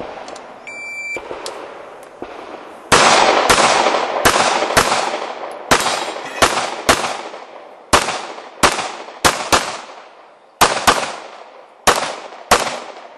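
Electronic shot timer's start beep, about half a second long, followed about two seconds later by a string of around sixteen gunshots, fired singly and in quick pairs, each with a ringing echo: a competitor shooting an IPSC stage.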